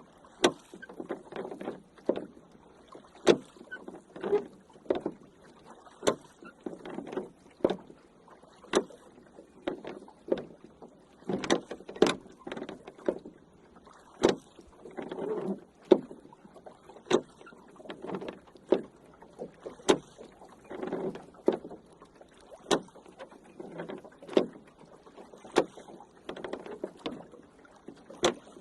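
Rowing boat under oars: sharp wooden knocks of the oars in their oarlocks alternating with the swish and splash of the blades through the water, stroke after stroke at an uneven pace.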